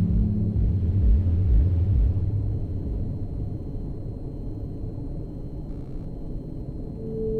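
Electronic synthesizer jam: a deep pulsing bass beat at about two pulses a second fades out about two seconds in, leaving a low rumbling drone. A held two-note synth tone comes in near the end.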